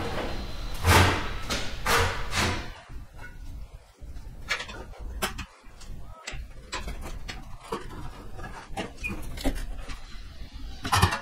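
Sheet-metal floor panel scraping and rattling as it is worked through a hand-cranked bead roller. There are a few loud scraping swishes in the first three seconds and again near the end, with scattered light clicks and knocks between.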